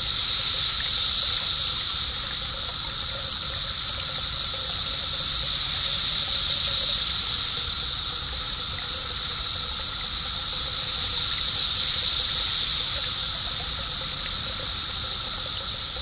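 Chorus of Brood X periodical cicadas: a loud, steady high-pitched buzz that swells and fades in slow waves about every five to six seconds.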